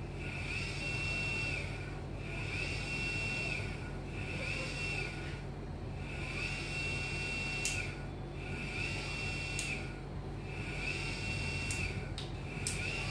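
Square-frame 12–24 V 600 W brushless DC motor running unloaded on its controller, giving a high-pitched whine that comes in and cuts out about every two seconds, its pitch rising briefly at each start and dropping at each stop, over a steady low hum. A few light clicks in the second half.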